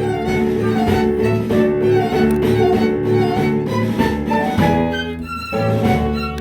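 An instrumental ensemble piece: a sustained, slightly wavering melody over a steady, repeating bass line, with a brief lull near the end.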